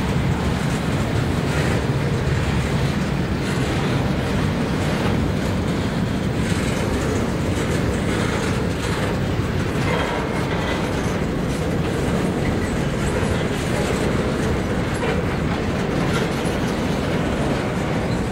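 Double-stack intermodal container train rolling past: a steady rumble of the well cars with the wheels clicking on the rails.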